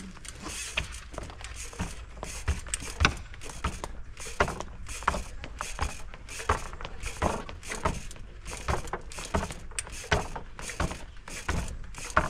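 Specialized P.Trials street trial bike hopping and landing through a run of jumps: many sharp knocks of the bike coming down, irregularly spaced at one to three a second, with light rattling between them.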